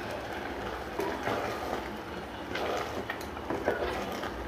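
Wooden spatula stirring thick pumpkin-and-cowpea curry in an open pressure cooker: irregular scrapes and soft knocks against the pot, over a low steady hum.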